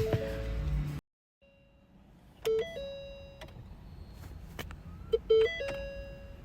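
Car's electronic warning chimes: a short run of stepped two- and three-note beeps about 2.5 s in, and again about 5 s in, each ending on a held tone. They sound while a no-start car with the key on fails to crank.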